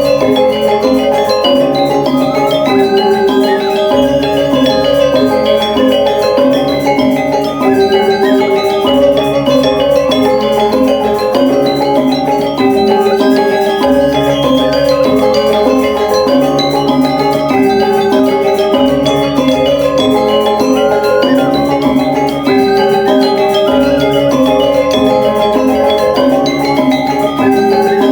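Balinese gamelan music accompanying the Rejang dance: bronze metallophones play a repeating interlocking melody over low gong strokes that recur every few seconds.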